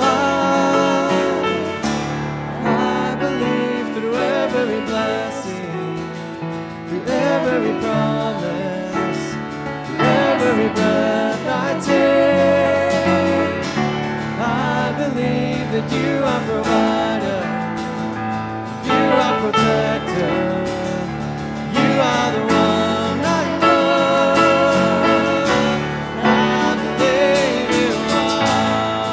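Contemporary worship song: a singing voice holding long notes with vibrato over a full instrumental backing.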